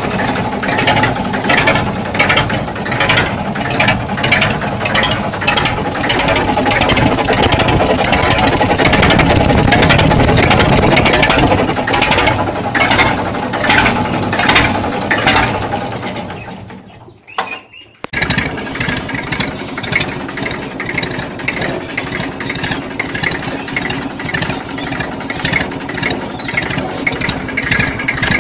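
Massey Ferguson 1035 three-cylinder diesel tractor engine running through a tall vertical John Deere silencer, a loud exhaust with a rapid, even beat. The sound fades out about two-thirds of the way through, then the engine is heard running steadily again.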